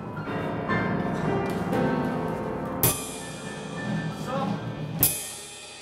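Freely improvised group music: a drum kit with sustained pitched sounds over it, two sharp crashes about three and five seconds in. After the second crash the playing stops and the crash rings out.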